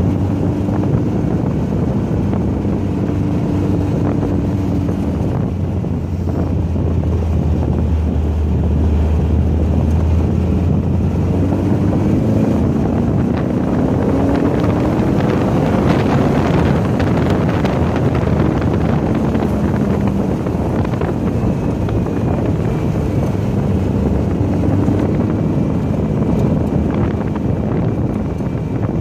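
Car engine running at speed on a racetrack, heard onboard under heavy wind noise on the microphone. The engine pitch holds steady, then climbs as the revs rise about twelve to fifteen seconds in.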